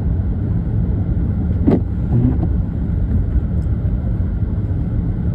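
Steady low rumble of a car's engine and tyres inside the cabin, driving on a slushy, snow-covered road. A single short knock comes about a second and a half in.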